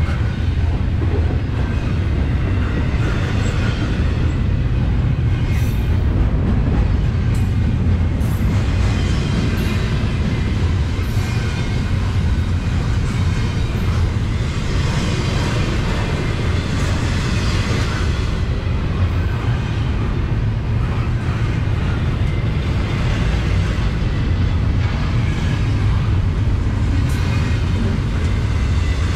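Double-stack container freight train rolling past at close range: a steady rumble and rattle of steel wheels on the rails, with a few short high ticks.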